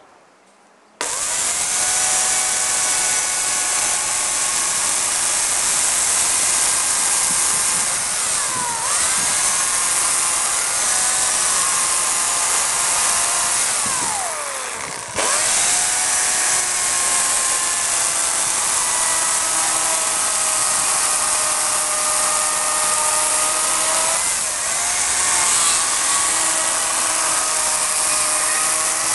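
Dolmar electric chainsaw switched on about a second in and running at speed, a high motor whine that drops in pitch as the chain bites into the wood of a log for shallow outline cuts. About halfway through it is let go, winds down, and starts up again.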